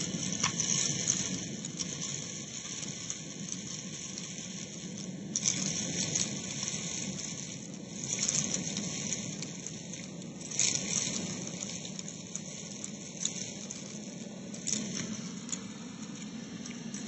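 Vacuum cleaner hose sucking bath salt crystals and rice grains off carpet: the steady drone of the suction with a crackling rattle of grains hitting the hose, which surges louder every few seconds.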